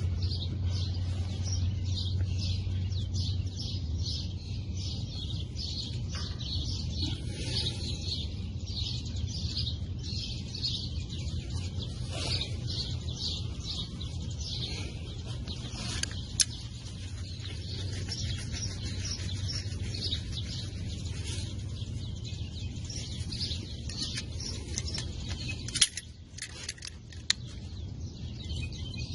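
Birds chirping in quick, repeated calls throughout, over a steady low hum, with a few sharp clicks, mostly near the end.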